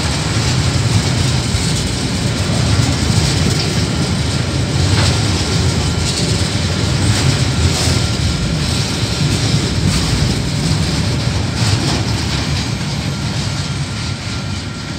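Container flat wagons of a KiwiRail freight train rolling past: a steady rumble of steel wheels on rail with a few sharp clacks. It eases slightly near the end as the last wagon goes by.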